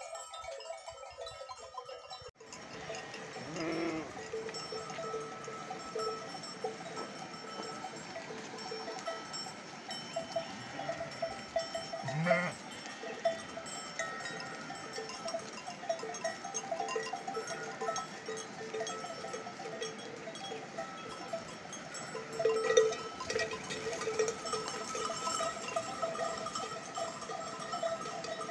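Bells worn by a moving flock of sheep and goats, many at different pitches, clinking and clanking continuously as the animals walk.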